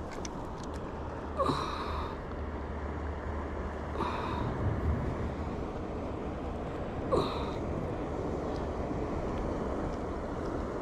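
Steady wind and sea noise on a rocky shoreline. Three short, sharper sounds stand out, about every three seconds, each sliding quickly down in pitch.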